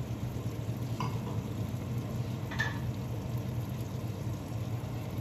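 Salmon and asparagus frying steadily under a glass lid in a frying pan, a continuous sizzle.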